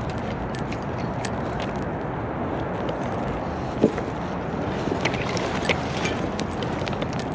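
Steady outdoor rush of a city river mixed with urban traffic noise, with scattered small clicks and one louder click about four seconds in.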